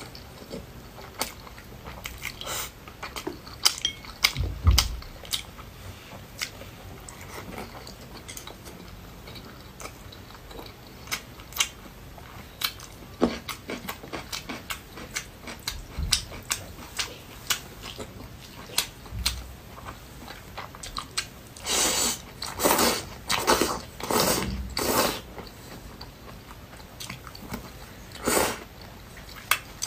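Close-miked chewing of food: wet mouth clicks and smacks at irregular intervals, with a run of louder, longer eating sounds a little past the two-thirds mark and one more near the end.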